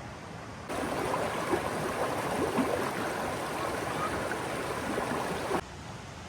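Water rushing and gurgling over the Dismal Falls cascade. The sound cuts in about a second in and cuts off abruptly near the end, over a quieter steady hiss.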